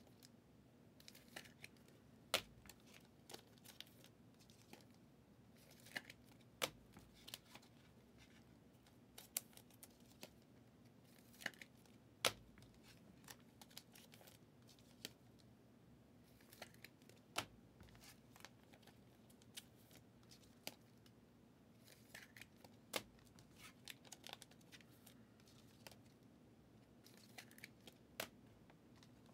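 Football trading cards being handled and flipped through by hand: quiet sliding of card stock with sharp little clicks and snaps every second or two, over a faint steady hum.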